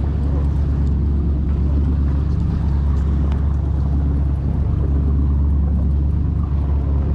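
Boat engine running steadily: a constant low rumble with a hiss of wind and water over it.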